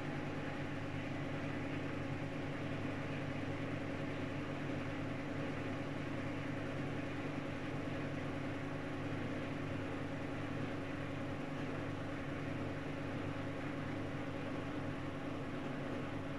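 Whirlpool FSCR90425 washing machine running its 600 rpm spin cycle with an unbalanced load, a steady motor and drum hum.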